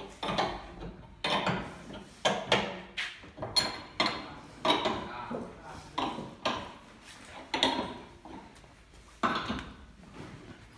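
Metal clanks and clicks from a wrench working the steel clamp bolts of a large HDPE butt fusion machine: about a dozen sharp strikes at irregular intervals of half a second to a second.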